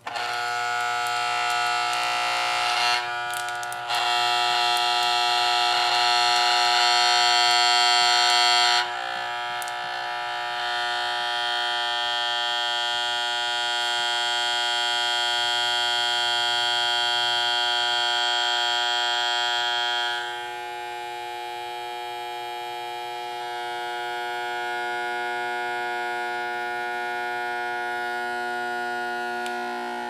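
Hoover U5280-940 vacuum's bare universal motor spinning at high speed, a steady high-pitched whine with many tones, its brushes and windings glowing as it overheats toward burning up. The whine steps louder a few seconds in, drops back after about nine seconds, and falls quieter again about twenty seconds in.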